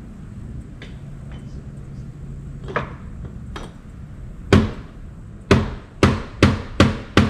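A run of sharp knocks in the second half, six in quick succession about two a second, with one fainter knock before them: a pickup's side mirror being struck to knock it loose from the door.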